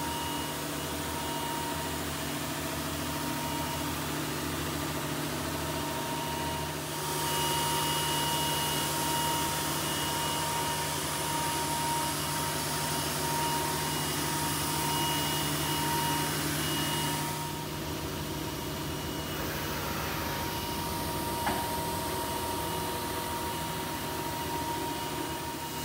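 Powered-up Polar 92X guillotine paper cutter running without cutting: a steady machine hum with constant whining tones. For about ten seconds in the middle it gets louder with more hiss, and there is one small click near the end.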